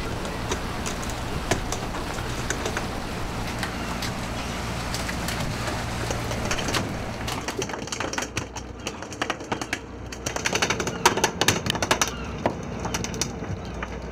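A bonito boat's engine hums steadily under wind and the rush of water. About halfway through, freshly landed bonito take over, beating their tails against the wet wooden deck in fast, rattling flurries of slaps and knocks that are loudest toward the end.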